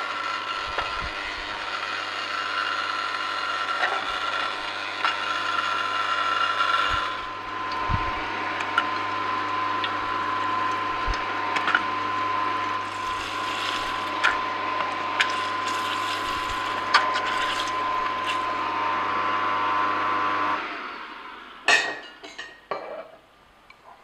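Angel twin-gear juicer running steadily as its stainless-steel gears crush cherry tomatoes, with scattered clicks and pops over the motor hum. The hum stops near the end, followed by a few sharp knocks.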